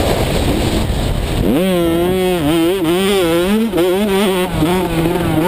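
85cc two-stroke motocross bike engine heard from the rider's helmet, with wind rush at first. About a second and a half in, the engine revs up sharply and holds at high revs, its pitch wavering as the throttle is worked along the track.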